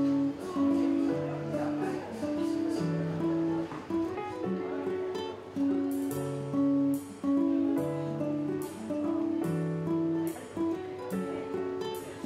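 Background music with acoustic guitar: plucked and strummed notes in a steady rhythm.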